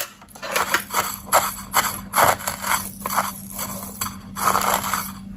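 Irregular scraping and clattering of small parts and wires being handled on a workbench, with a faint steady hum underneath.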